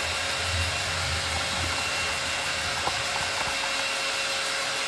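A handheld craft heat gun blowing with a steady, even whir, drying freshly applied paint.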